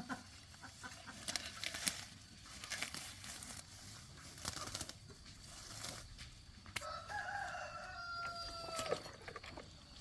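A rooster crows once, a long held call that falls in pitch at the end, starting about seven seconds in. Scattered short clicks and knocks come before it.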